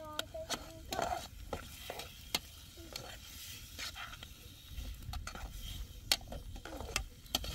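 Irregular sharp clicks and light clatters, several seconds apart, over a faint hiss and low rumble.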